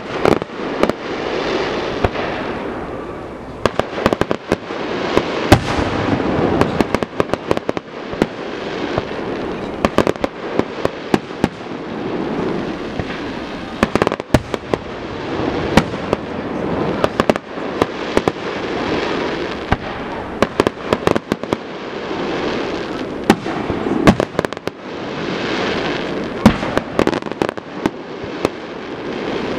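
Aerial fireworks display going off in quick succession: many sharp bangs and crackles coming in dense clusters, over a continuous rushing background that swells and fades every few seconds.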